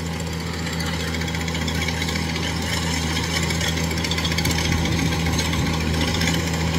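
Kubota DC-105X combine harvester's diesel engine running steadily while it cuts and threshes rice. A steady low hum sits under a noisy mechanical whir, and the sound slowly grows louder as the machine comes closer.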